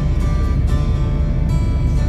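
Background music with steady held tones, over a constant low rumble.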